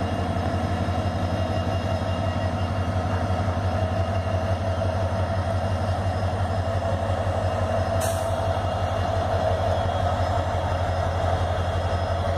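EMD WDP-4D diesel locomotive's two-stroke V16 engine running under power as it pulls slowly away, a steady deep throb. A short hiss cuts in about eight seconds in.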